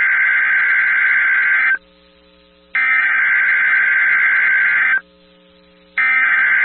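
Emergency Alert System SAME header heard over NOAA Weather Radio: harsh, buzzy digital data tones sent as repeated bursts of about two seconds with a one-second gap between them. The first burst is already under way, stopping about two seconds in, the next follows, and a third starts near the end. The bursts carry the coded alert, here a Child Abduction Emergency (AMBER Alert).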